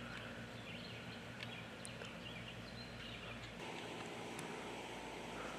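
Faint steady outdoor background hum with a few tiny scattered ticks; its texture changes about three and a half seconds in.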